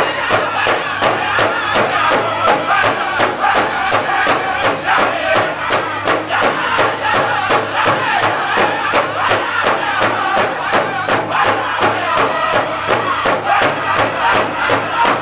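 Powwow drum group singing together in loud high voices over a big powwow drum struck in a steady, even beat by several drummers at once.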